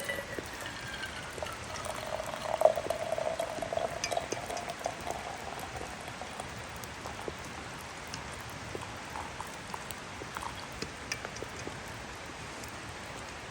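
Hot coffee being poured and bubbling, a faint tone sliding down in pitch for the first few seconds, then scattered small drips and pops.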